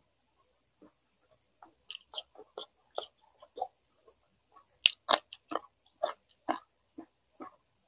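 Close-up eating sounds: chewing and biting with some crunch, heard as a quick irregular run of short smacks and clicks that gets loudest about five to six and a half seconds in.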